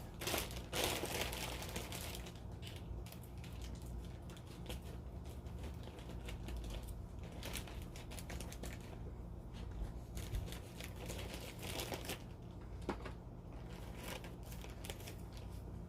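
Scissors snipping open a mailing bag, followed by the bag and its contents rustling and crinkling as they are handled, busiest in the first couple of seconds.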